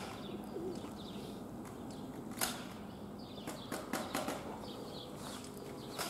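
Outdoor ambience with small birds chirping and a few sharp taps, the loudest about two and a half seconds in and a short run of them around four seconds.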